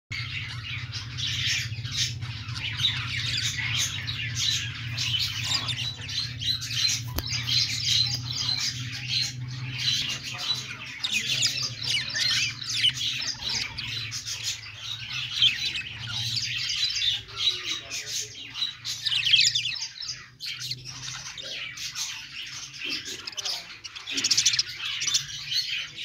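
A flock of budgerigars chattering and chirping without a break, many birds' warbles and tweets overlapping.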